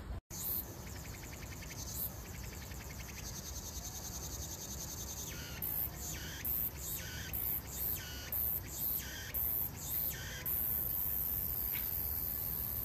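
Insects calling: a faint steady high trill, then a run of short, loud, high buzzes two or three a second, which merge about ten seconds in into one unbroken high buzz.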